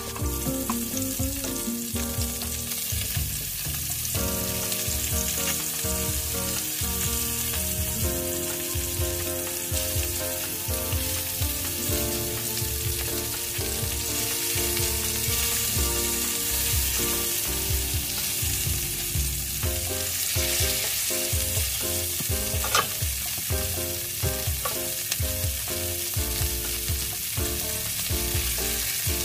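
Fish frying in hot oil in an open pan: a continuous sizzle, with a spatula now and then scraping and turning the pieces.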